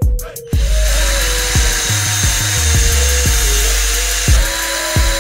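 Cordless drill running steadily as its bit bores a hole into a wooden dowel, starting about half a second in. Hip-hop music with a steady beat plays over it.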